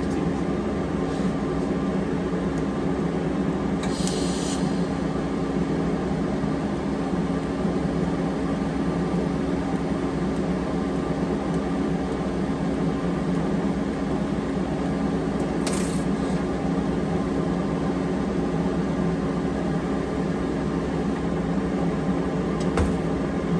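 TIG welding stainless steel with 308 filler: a steady hum, with two brief high hissing bursts about four seconds in and again near sixteen seconds.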